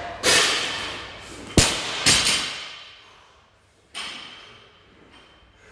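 A sharp thud about one and a half seconds in, with noisy clattering bursts around it that ring out in a large echoing hall; the loudest comes about two seconds in and a fainter one near four seconds. These are weights knocking on a rubber gym floor during a barbell workout.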